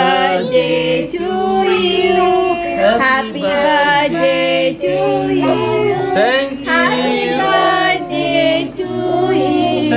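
Music with singing voices, a song carried by held, sliding sung notes over steady low notes.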